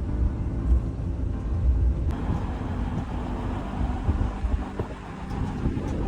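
Car in motion: steady low engine and road rumble, with a broader hiss of road or wind noise coming in about two seconds in.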